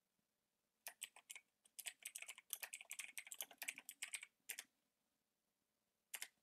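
Computer keyboard typing: a quick run of keystrokes for about four seconds, then a short pause and a couple more keystrokes near the end. The keystrokes are faint.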